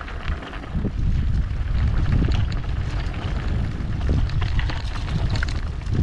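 Wind buffeting the microphone of a camera on a moving mountain bike, a heavy rumble, over the crunch of tyres on a loose gravel and stone track with many scattered clicks and rattles.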